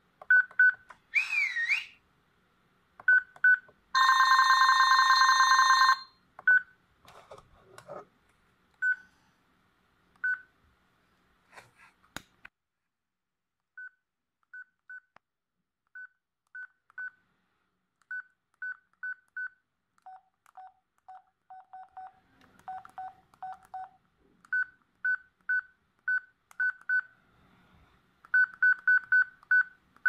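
Toshiba TS808 flip phone beeping as its keys are pressed to scroll the menus: many short single-pitch beeps, some spaced out and some in quick runs, with a lower-pitched run of beeps about two-thirds of the way through. Near the start the phone's Yamaha sound chip also plays a short gliding chirp and a two-second synthesized tone.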